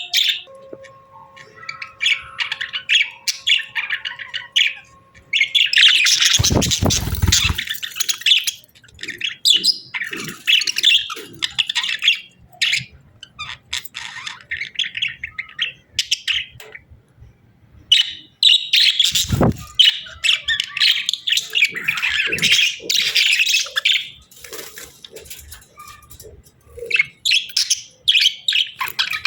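A pair of budgerigars chirping and chattering continuously, with busier bursts of warbling about six seconds in and again from about eighteen seconds in. Two low thuds come through, one about seven seconds in and one about nineteen seconds in.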